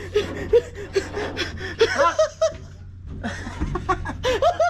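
Several people laughing and chuckling in short, broken bursts, with a steady low hum beneath.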